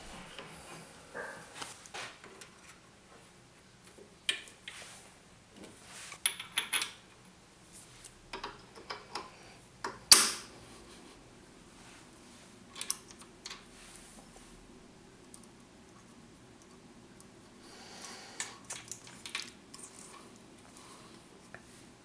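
Brass wheel blank and lathe fittings handled by hand: scattered small metallic clicks and clinks, with one sharper clink about ten seconds in, as the blank is taken from the collet and fitted onto a threaded arbor.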